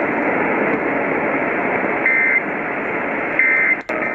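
Radio receiver static hiss with two short bursts of data tones about a second and a half apart, the end-of-message code that closes an Emergency Alert System warning. The signal drops out briefly near the end.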